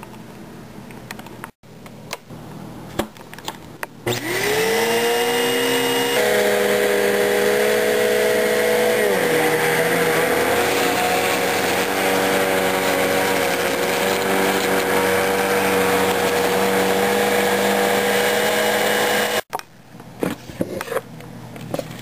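Bagless upright vacuum cleaner switched on about four seconds in, its motor whining up to speed and then running steadily as it sucks up strips of paper from a carpet, with the pitch dipping a little around nine seconds in. The motor cuts off abruptly a little after nineteen seconds, and light clicks and rattles follow.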